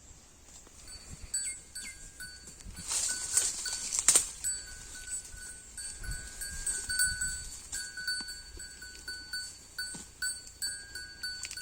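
Holstein Friesian cow grazing, with a small bell tinkling in short, repeated rings. About three seconds in there is a loud rush of noise that ends in a sharp click.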